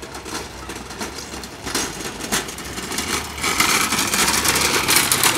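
Small motorcycle engine running as it draws close, getting louder over the last couple of seconds, with clattering mixed in.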